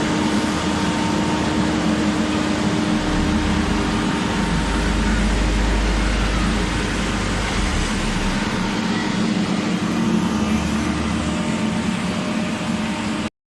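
Diesel engine of heavy road-construction machinery running steadily with a low rumble and hum, cutting out abruptly near the end.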